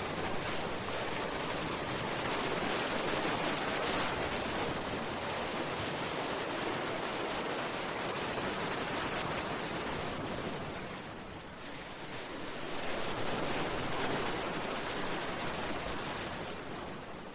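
Sea waves washing against a seawall and breakwater rocks: a continuous rush of water that dips briefly about two-thirds of the way through and then swells again with the next wave.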